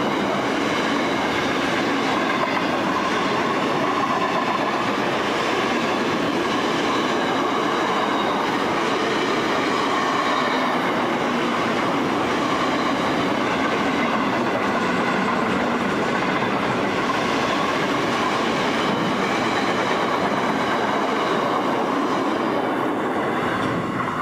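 Freight wagons of a steel train rolling past: a steady rumble of wheels on rail with a steady whine running through it. It drops away near the end as the last wagon passes.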